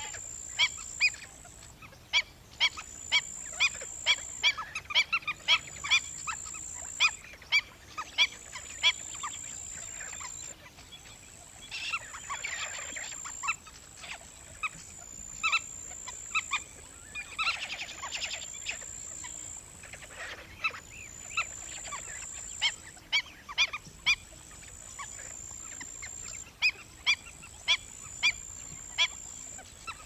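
Black-winged stilts calling: a running series of short, sharp yapping notes, several a second. Denser bursts of overlapping calls come about twelve and eighteen seconds in.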